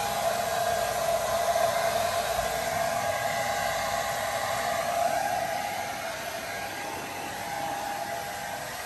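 Handheld hair dryer running steadily, blowing on a wet puppy's coat; a steady rushing whir with a hum in it, somewhat quieter from about halfway through.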